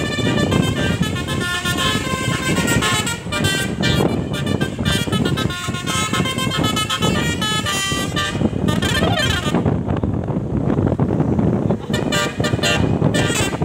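A bus's basuri telolet horn playing a quick melody of bright multi-tone notes over the running noise of the bus. The tune stops about eight or nine seconds in, leaving road and wind rumble, and a few short horn notes sound again near the end.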